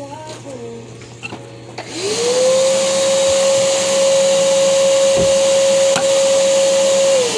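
An electric motor spins up about two seconds in, runs at a steady pitch with a loud rush of air for about five seconds, then winds down near the end.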